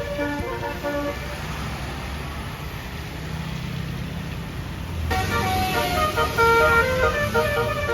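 Basuri multi-tone bus air horn (telolet) playing a melody in quickly changing notes, breaking off about a second in while a bus engine rumbles past, then starting a new melody about five seconds in.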